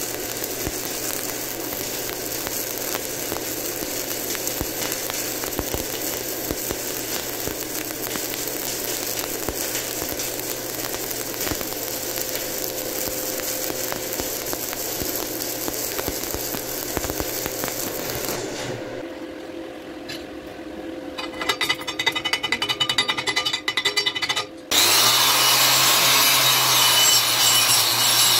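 Stick (shielded metal arc) welding arc crackling and sizzling steadily as an overhead bead is laid on a steel plate. It stops about 18 seconds in; after some stuttering noise, an angle grinder with a cut-off disc runs loud and steady, cutting through the welded steel plate.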